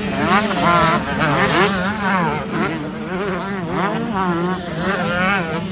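125 cc two-stroke motocross bikes racing, their high, buzzing engine notes rising and falling over and over as the riders rev, shift and take the jumps, over a steady low drone.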